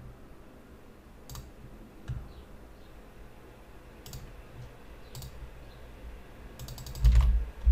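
Computer mouse clicks: single clicks a second or more apart, then a quick run of clicks near the end, followed by two low thumps that are the loudest sounds.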